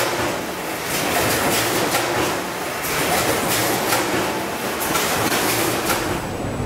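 Car-body press shop noise: a steady machinery din with frequent sharp metallic clanks and clicks.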